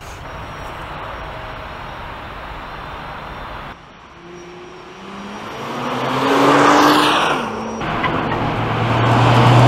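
Nissan GT-R's 3.8-litre twin-turbo V6 under acceleration through a corner, getting louder about halfway in with its note climbing. Near the end it holds a loud, steady low note.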